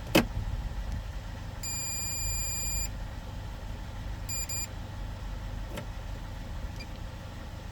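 Volvo EC220EL excavator's diesel engine idling with a low steady rumble. There is a sharp click just after the start, then a steady electronic beep of a little over a second, and a short double beep a couple of seconds later.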